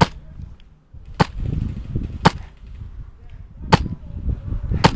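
Five single shots from an MTW airsoft designated-marksman rifle, sharp cracks spaced roughly a second apart, with a low rumble between them.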